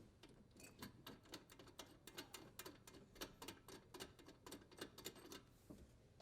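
Faint, rapid, irregular clicking, several ticks a second, as a dishwasher's threaded leveling leg is turned to lower the appliance; the clicks stop about a second before the end.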